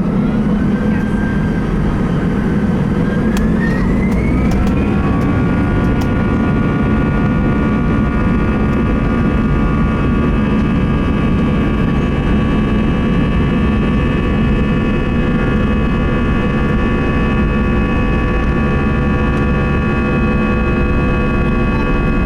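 Airbus A320 jet engines spooling up to takeoff thrust, heard from inside the cabin. A whine rises in pitch over the first few seconds, then settles into a steady, many-toned buzzsaw drone over a low rumble.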